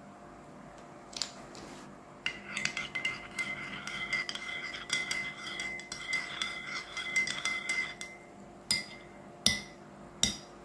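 Metal teaspoon stirring milk in a ceramic mug, clinking rapidly against the inside wall with a ringing tone for several seconds. It stops, and three separate sharp clinks follow near the end.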